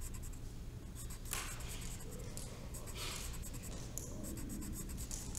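Colored pencil scratching on paper in quick, repeated shading strokes, with a few louder stretches of scratching.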